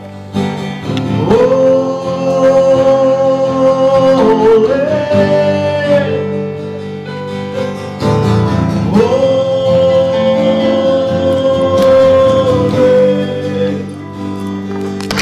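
Worship music: a singer holding long, drawn-out notes over a steady instrumental accompaniment, in two phrases with the second beginning about nine seconds in.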